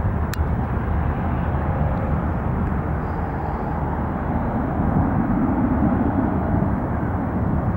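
Airbus A320-232 climbing out at takeoff power: the steady low rumble of its two IAE V2500 turbofans, swelling a little about five seconds in.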